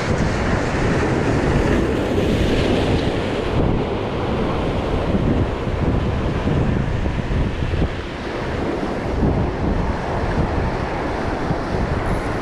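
Wind buffeting the microphone with a steady low rumble over ocean surf breaking and washing on jetty rocks; the surf hiss swells for a moment about two seconds in.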